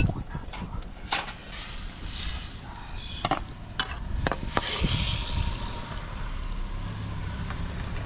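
Liquid pouring or splashing, with scattered clicks and knocks from gear being handled.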